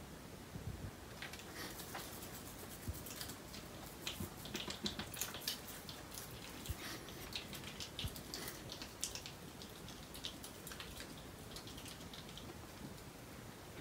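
Pine marten eating honey-coated nuts from a plate: a run of faint small clicks and crunches, thickest in the middle and thinning out near the end. A single sharp tap right at the start.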